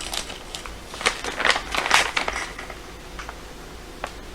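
Crinkling and rustling of supplies being handled, in several short crackly bursts over the first two and a half seconds, then a quieter stretch and a single click near the end.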